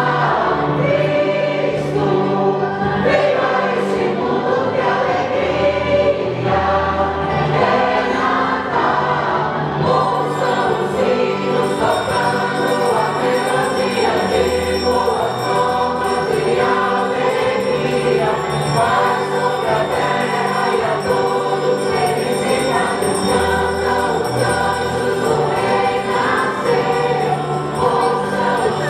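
A choir singing with musical accompaniment, at a steady loud level. About ten seconds in, high ringing bell-like tones join the music.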